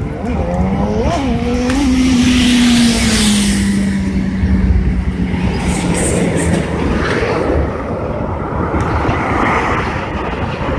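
A freight train of open gondola cars rolling past under a road bridge, with a road vehicle passing close by on the bridge, its engine tone dropping in pitch about three seconds in and fading out near the middle.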